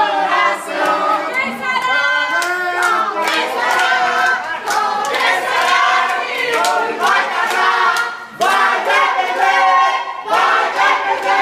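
A crowd singing a birthday song together, with hand claps through it; the singing dips briefly about eight seconds in.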